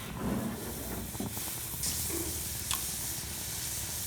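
Water being poured into a saucepan, a steady splashing fill, with a couple of light clicks partway through.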